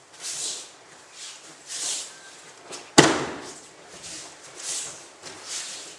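A person being thrown in aikido lands on the mat in a breakfall: one sharp, loud slap about halfway through. Softer swishing sounds come a few times around it.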